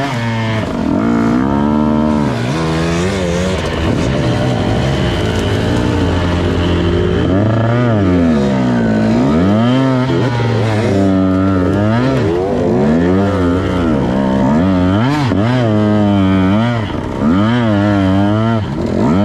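Off-road dirt bike engine revving up and down over and over as the throttle is worked on and off, its pitch rising and falling every second or two.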